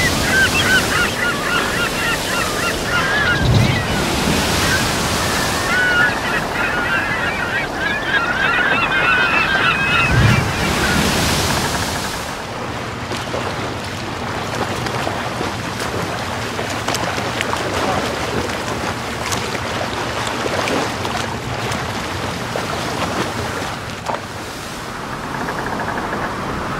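Sea waves washing and breaking on a sandy beach, swelling every few seconds. For the first twelve seconds or so, birds call over the surf again and again. After that a low steady hum runs under the waves.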